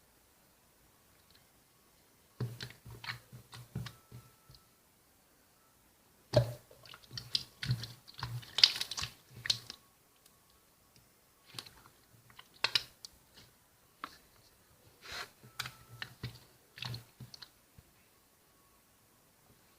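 Toy slime being squeezed and pressed by hand, making clusters of quick sticky clicks and small pops with short pauses between handfuls.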